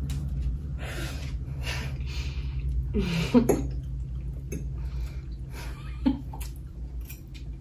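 Slurping and chewing of ramen noodles eaten from a fork, several short wet slurps with the loudest about three and a half seconds in, over a steady low hum.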